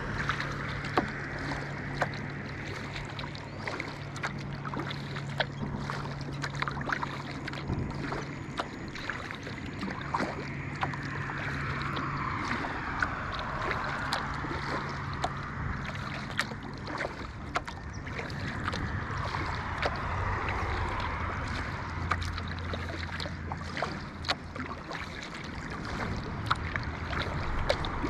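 A kayak being paddled: many small splashes and drips from the paddle and water against the hull, over a steady wash of water and wind. A faint low hum runs underneath.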